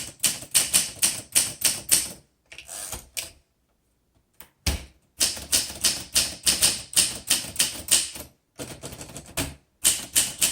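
Keys of a 1959 Olympia SM3 manual typewriter striking in quick runs, about four to five keystrokes a second. The typing stops for about two seconds near the middle, with a single low thump, then goes on.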